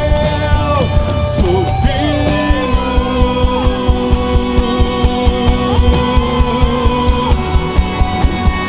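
Live worship band playing a slow song with acoustic guitar and a steady drum beat, while voices hold long sung notes that slide from one pitch to the next.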